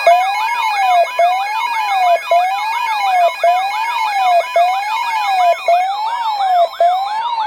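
Layered electronic alert sirens on an emergency-alert radio broadcast. A low wail rises and falls about once a second beneath faster warbling sweeps and a steady tone near 1 kHz, and the higher layers drop out about six seconds in.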